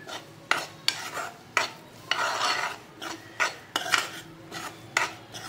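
A metal spoon stirring gram flour in ghee in a metal kadhai, scraping and knocking on the pan: sharp clicks roughly twice a second, with a few longer rasping scrapes.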